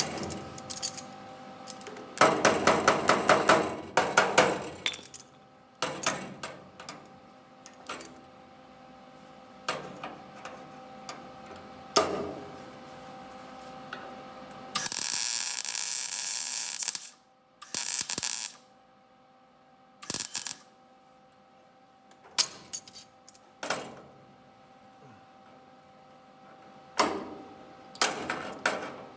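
Metal body-work sounds: a run of rapid metallic taps, scattered clinks and knocks, and a steady hiss of about two seconds around the middle.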